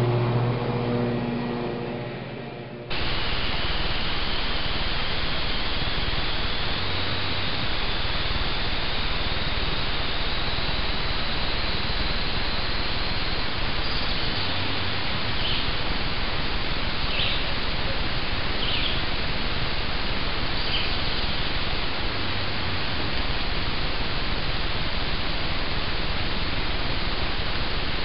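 A riding lawn mower's engine running and fading away over the first three seconds. Then an abrupt cut to a steady hiss of trail-camera microphone noise, with a few faint high chirps about halfway through.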